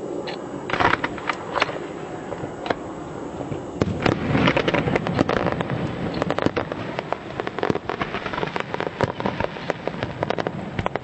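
Fireworks display: a few scattered bangs and crackles, then from about four seconds in a dense rapid crackling barrage of many overlapping bursts.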